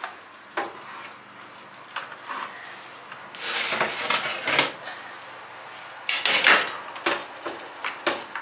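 Oven door opened, then a metal baking tray scraping out along the oven rack and set down with a clatter on the gas hob's grates about six seconds in, with light knocks and clicks before and after as the oven door is pushed shut.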